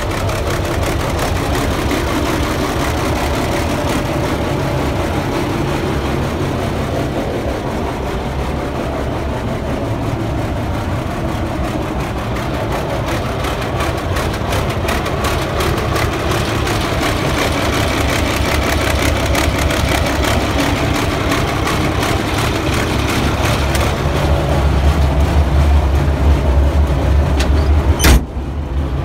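Diesel engine of a TG75C crawler bulldozer idling steadily after its first start following the winter, a low rumble with rapid firing pulses that grows louder and deeper over the last few seconds. A sharp click and a brief dip come about a second before the end.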